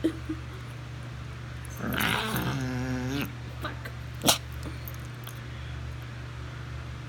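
Small dog growling in play while mouthing at a hand: one rough growl about two seconds in, followed by a single sharp click, over a steady low hum.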